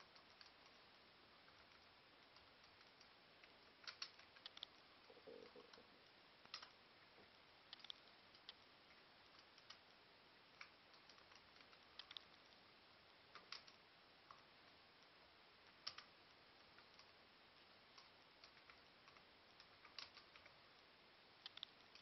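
Faint, scattered clicks of laptop keys being pressed, one or a small cluster every second or two, with long gaps, over faint steady hiss.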